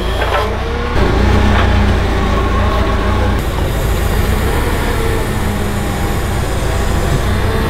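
Propane-fuelled Yale forklift engine running steadily with a low engine note while the forklift carries a car on its forks.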